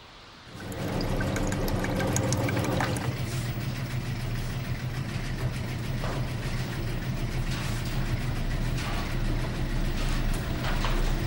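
Launderette washing machines running: a steady machine hum that starts about half a second in, with scattered clicks and knocks over it.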